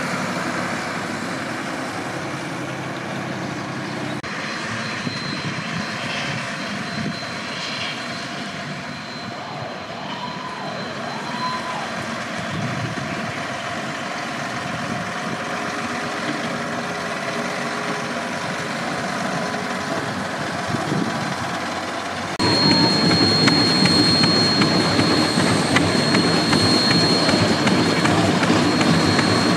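1992 Dennis SS 237 fire engine's diesel engine running steadily as the truck drives along. About three-quarters of the way through it suddenly becomes louder, with a steady high whine over the engine.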